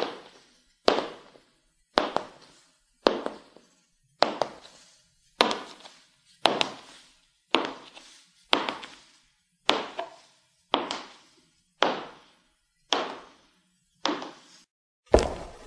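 High-heeled shoes clicking on a hard floor in slow, even steps, about one click a second, each echoing briefly. Just before the end a louder, quicker run of heavier knocks begins.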